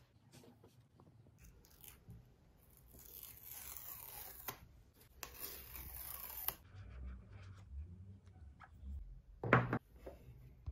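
Paper tear-off seal strips on an iPhone box being pulled off, two ripping sounds a second or so apart, followed by light cardboard handling and one loud knock near the end.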